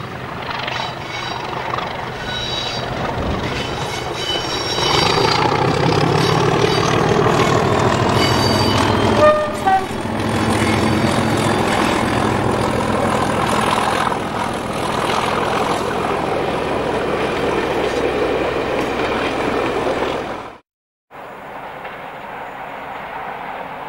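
English Electric Class 37 diesel locomotive working hard as it hauls a sleeper train past, its engine growing louder over the first few seconds and staying loud as the coaches roll by, with a short horn toot about nine seconds in. The sound cuts off about 21 seconds in and comes back as a quieter, steady rumble from a distant approaching locomotive.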